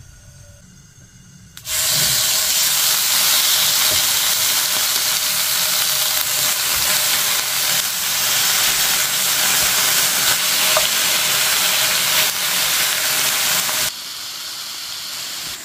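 Slices of raw pork belly sizzling loudly as they are laid into a hot frying pan, starting about two seconds in. Near the end the sizzle drops to a quieter, steady hiss.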